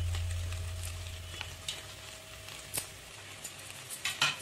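Spoon stirring mutton keema and scrambled egg in a stainless steel pan, with a few sharp clinks of metal on the pan, the loudest cluster near the end.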